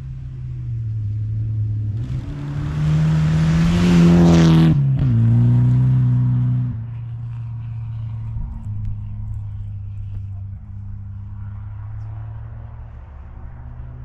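2008 Mitsubishi Lancer Evolution X rally car's turbocharged four-cylinder engine at high revs, approaching and passing at speed on a snow-covered stage, with a loud hiss of tyres and thrown snow as it nears. The engine note rises as it comes in and drops sharply about five seconds in as it goes by. It then falls back to a lower, steadier drone.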